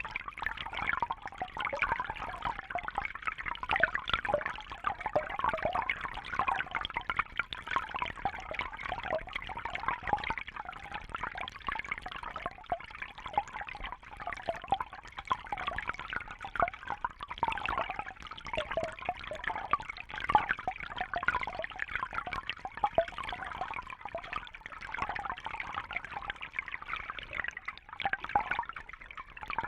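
Babbling brook: shallow water burbling and trickling over stones, a steady flickering splash with constant small bubbling variations.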